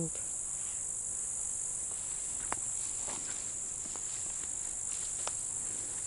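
Grasshoppers chirring in a steady, continuous high-pitched chorus, with a few faint ticks under it.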